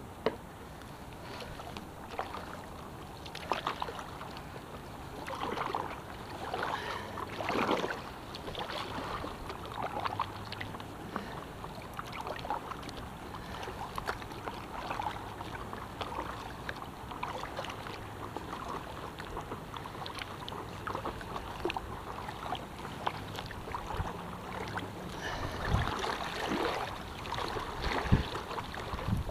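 Stand-up paddleboard paddle strokes: the blade dipping and splashing in the river water, with water trickling and lapping along the board between strokes. The splashes come irregularly, busier near the end.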